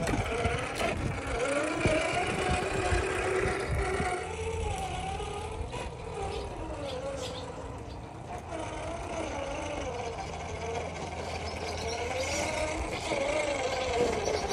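Redcat Gen 9 RC crawler's Hobbywing Fusion Pro brushless motor and geartrain whining, the pitch rising and falling as the throttle is worked. In the first few seconds the tyres knock over wood blocks.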